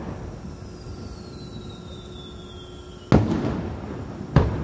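Aerial firework shells bursting overhead at close range: two sharp bangs, the first about three seconds in with a rumbling echo after it, the second just over a second later.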